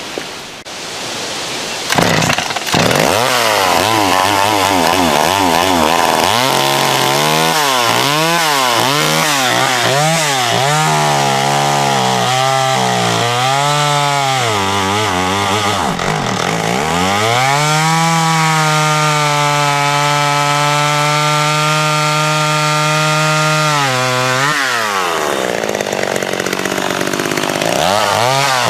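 Vintage two-stroke chainsaw starting up about two seconds in, then revved up and down over and over, held at high speed for several seconds, dropping back and picking up again near the end.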